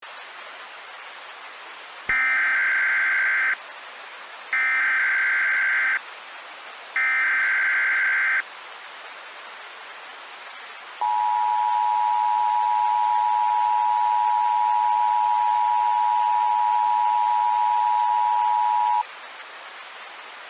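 Emergency Alert System signal opening an Emergency Action Notification. Three short warbling SAME data-header bursts come about a second apart. After a pause, the two-tone EAS attention signal sounds steadily for about eight seconds, over a constant hiss and a faint high whine.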